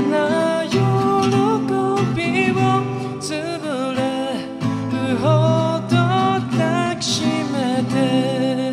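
A man singing a Japanese love song to his own strummed acoustic guitar, holding a long note near the end.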